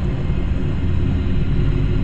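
Triumph Scrambler 1200's parallel-twin engine running steadily on the move, a continuous low engine note with road and wind noise over it.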